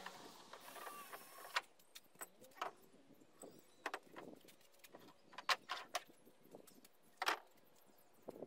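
Scattered light clicks, taps and knocks from tools being handled and set down, coming at irregular intervals, with no power tool running.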